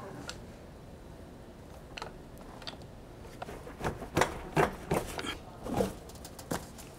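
Light handling knocks and clicks from the BMW E46 M3's stock exhaust being pushed and wiggled by hand on a partly lowered floor jack. A few scattered taps come first, then a quicker cluster of them in the second half.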